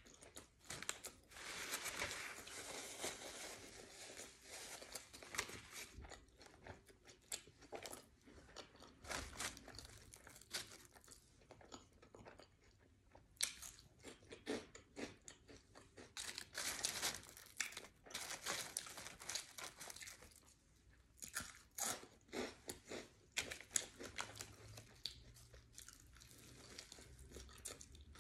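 Close-up chewing with irregular crunching, from mouthfuls of Tom's Hot Fries crunchy corn snack sticks and a sub sandwich.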